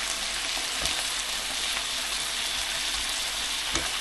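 Food frying in a pan: a steady sizzling hiss, with a couple of faint clicks.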